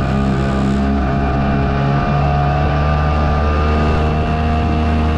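Outboard motor running steadily, pushing a small boat along at cruising speed.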